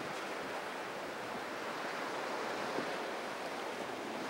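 Steady rush of surf and churned water from a fast center-console boat's wake and spray, with wind on the microphone.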